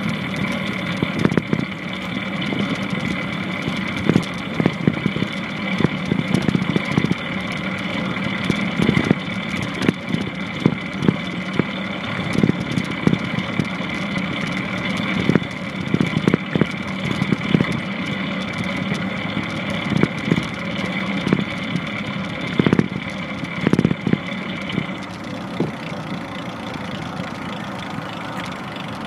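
Longboard wheels rolling on pavement in a steady rumble, with irregular sharp knocks scattered through it. A high steady whine runs alongside and stops near the end.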